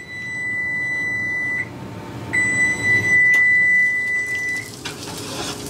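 Kitchen timer sounding a long, steady high beep, a short pause, then a second long beep, signalling that the cooking time is up. A single sharp click comes about midway through the second beep.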